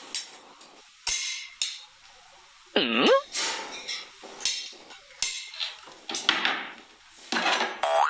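A dog's claws being clipped and filed: a few sharp clicks of the clippers in the first second or two, then repeated rasping strokes of a file across the claws. About three seconds in, a short tone falls and rises again.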